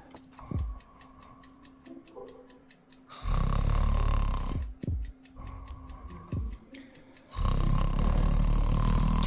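A person snoring loudly: two long snores, one about three seconds in and another starting about seven seconds in, each lasting one and a half to two seconds.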